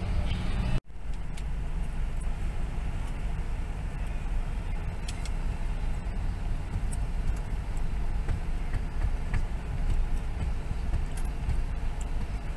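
Steady engine and road rumble heard from inside a moving vehicle in traffic. There is a brief dropout about a second in.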